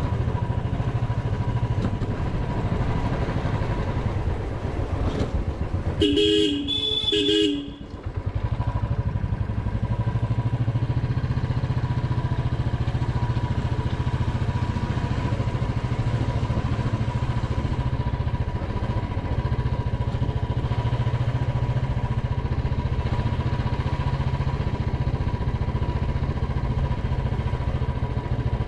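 Royal Enfield Classic 350's single-cylinder engine running steadily at low riding speed, heard from the rider's seat. A horn honks twice in quick succession about six seconds in, and the engine note drops off briefly just after.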